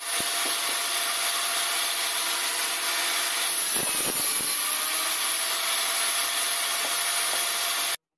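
Homemade table saw, a circular blade set under a plywood top, ripping a strip of plywood: a loud, steady, high-pitched cutting noise. A few knocks come about four seconds in, and the sound stops abruptly near the end.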